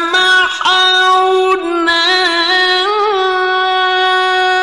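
A male Qur'an reciter chanting tilawah in a high register, drawing one long melodic line. Quick ornamental turns fill the first half, with a short break in the middle, and a long steady held note fills the second half.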